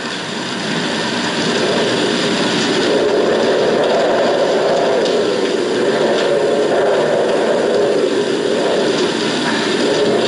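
Storm wind howling across a mountain rock face, a steady roar that fades in and then swells and eases about every three seconds.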